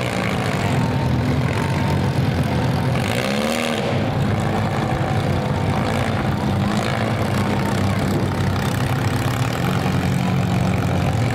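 Demolition derby car engines running steadily, with one engine revving up and back down about three seconds in.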